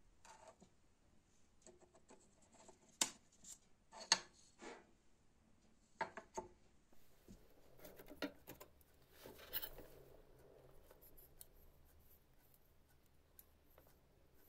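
Quiet handling sounds of small metal parts: a pencil scratching around a template on a brass guard block, and scattered sharp clicks and taps of brass pieces and the steel knife blank against each other and the tabletop, loudest about three and four seconds in.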